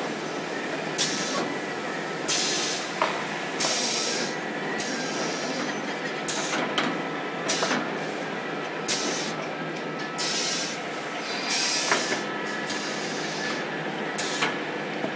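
Automatic paper tube edge polishing machine running: a steady machine hum with short hisses, irregular and about once a second, as the paper tube ends grind against the polishing heads.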